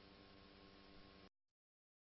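Near silence: a faint steady hum of room tone that cuts off to dead silence just over a second in.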